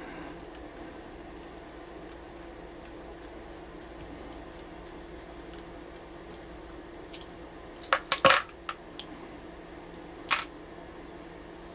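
Small metal parts of a brass padlock clinking and clicking against each other and a hard surface as the lock is taken apart: a quick cluster of sharp clinks about eight seconds in and a single one about two seconds later, over a faint steady hum.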